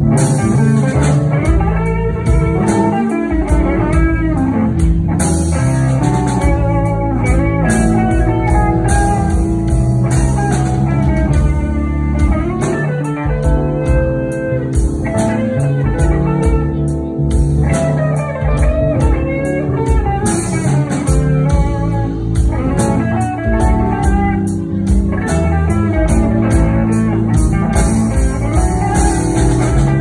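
A live blues band playing: electric guitars over bass guitar, drum kit and keyboard.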